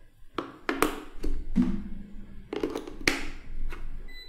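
Batteries being pushed by hand into a plastic multimeter's battery compartment: a string of sharp clicks and knocks as the cells are seated.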